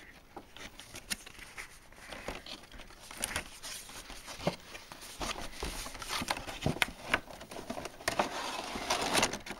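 Cardboard figure box being opened by hand: tape pulled from a flap, then irregular rustling, clicking and crinkling of the cardboard and plastic packaging, busiest near the end.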